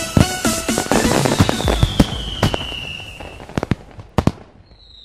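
Fireworks going off: a dense run of bangs and crackles that thins out, with a falling whistle from about a second and a half in. A few sharp separate bangs come near the end as the sound fades.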